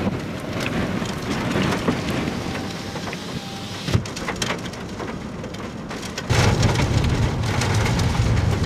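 Rain pattering on a vehicle, with many scattered drop hits and one sharper knock about four seconds in. About six seconds in, a louder low rumble sets in abruptly and holds.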